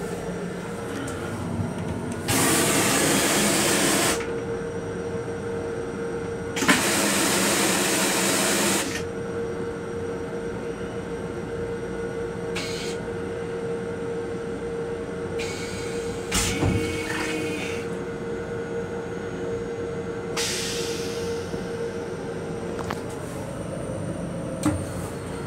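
Toilet in an M7 railcar restroom flushing: two loud rushing hisses of about two seconds each, a few seconds apart, over the steady hum and rumble of the moving train.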